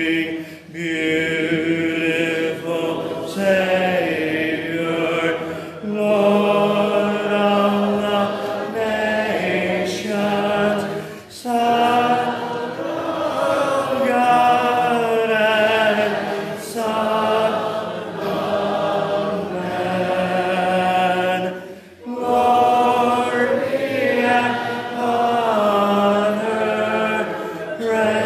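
Congregation singing a hymn a cappella in several voices, led by a song leader's voice at the microphone, line by line with short breaks for breath between phrases.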